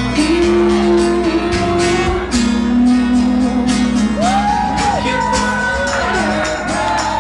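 Live acoustic rock band: steady strummed acoustic guitars over long held low notes, with singing voices coming in about four seconds in.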